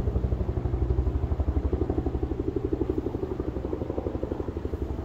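Helicopter flying nearby, its rotor beating in a rapid, steady chop of about eight beats a second.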